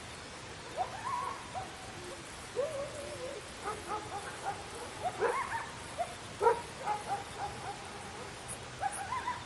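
Several dogs barking and yelping at a distance, short calls coming irregularly and busiest in the middle, over a steady background hiss.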